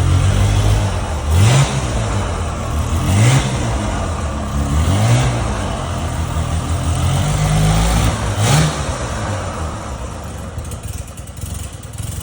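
Motorcycle's Wankel rotary engine running, blipped up in quick revs about four times and dropping back to idle between them, then settling lower near the end.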